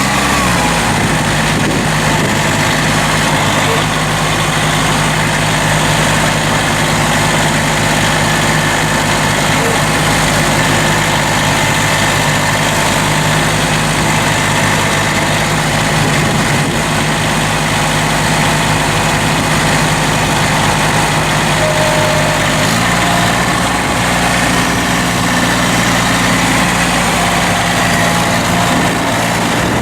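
Massey Ferguson GC1710 compact tractor's three-cylinder diesel engine idling steadily, its speed stepping up slightly about three-quarters of the way through.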